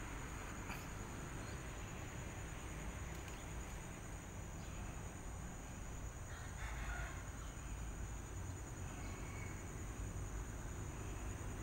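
Steady high-pitched insect drone over a low, continuous rumble.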